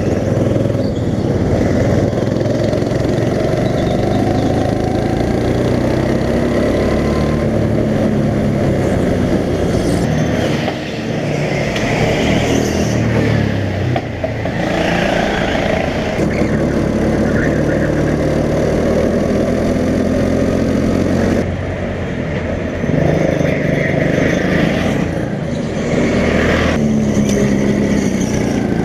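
Go-kart engines running hard around a track, the pitch rising and falling as the throttle opens out of corners and eases off into them, with several karts heard at once.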